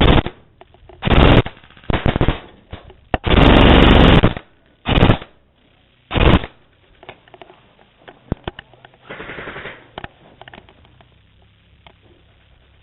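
Airsoft electric gun firing full-auto bursts: two short bursts, then a long one of about a second, then two more short ones. The firing stops after about six seconds, leaving a fainter burst of noise near nine seconds and scattered clicks.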